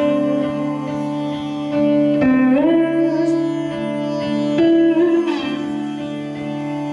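Slide guitar played lap-style, with sustained droning notes and a sitar-like ring. Slow slides glide up in pitch about two seconds in and again around five seconds.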